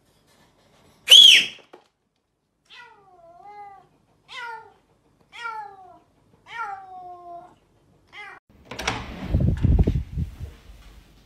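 Domestic cat meowing: a loud high cry about a second in, then about five separate meows, each falling in pitch. Near the end comes a loud, noisy rumble.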